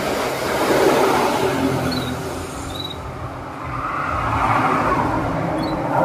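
Road traffic going by on the street: vehicles passing, one swelling up about a second in and another around five seconds.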